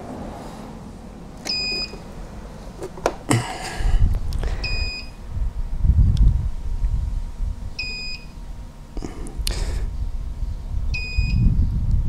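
Power inverter's fault alarm giving four short, high two-tone beeps about three seconds apart, signalling an E04 fault: the inverter is overheating under the mini fridge's load and cannot run it. A few sharp clicks and some low rumbling come between the beeps.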